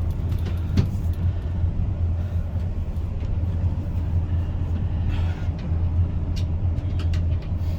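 Steady low rumble and hum of an Intercity Express high-speed train running, heard from inside a passenger compartment, with a few faint light clicks.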